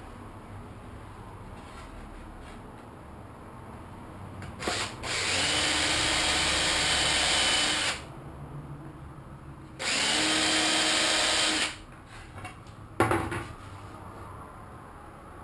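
Cordless drill running in two steady-pitched bursts, the first about three seconds long and the second about two, drilling into the timber at the bottom of a door. A single sharp knock follows near the end.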